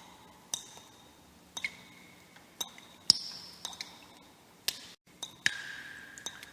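Water drops falling one at a time into water, each a sharp plink with a short ringing tone at a varying pitch, about one or two drops a second. The sound cuts out for an instant about five seconds in.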